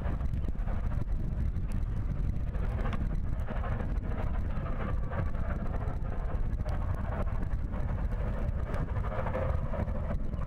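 LMS Black Five 4-6-0 steam locomotive 44871 working a passenger train away on departure: steady exhaust and train rumble, low and even, with no breaks.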